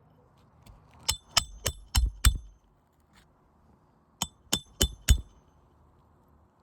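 Hammer striking a roof snake to drive roofing nails back in under a shingle tab: five quick ringing metallic blows, a pause of about two seconds, then four more.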